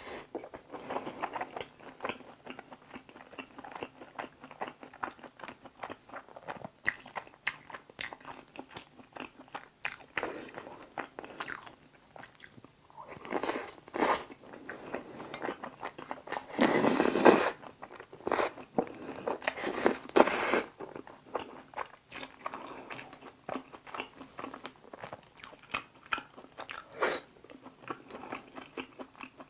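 Close-miked mukbang eating sounds: wet chewing and biting of tteokbokki in thick spicy sauce, with louder slurps as noodles are drawn in, the loudest about 17 seconds in.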